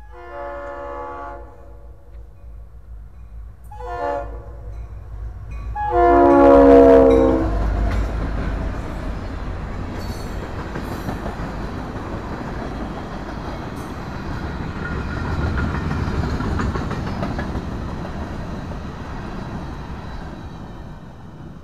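Freight locomotive's air horn sounding for a grade crossing: a long blast, a short one, then a long final blast, the loudest, as the train reaches the crossing. It is followed by the steady rumble and clatter of freight cars rolling past over the rails.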